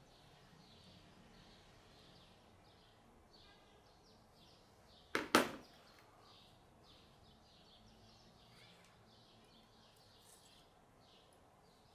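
Two sharp clicks close together about five seconds in, as small steel drill-bit and collar parts are handled, over a faint background of short high chirps.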